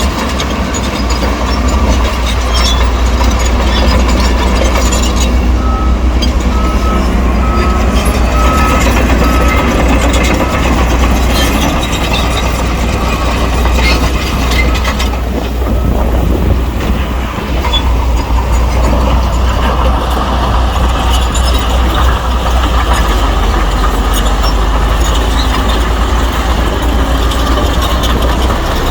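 Diesel engines of heavy earthmoving machinery, a bulldozer and dump trucks, running steadily under load. A reversing alarm sounds a row of short, evenly spaced beeps at one pitch for a few seconds, starting about six seconds in.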